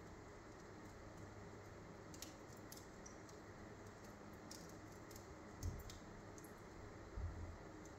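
Wood fire burning low in a fireplace: faint, scattered crackles and snaps over a steady hiss, with a couple of low thuds in the second half.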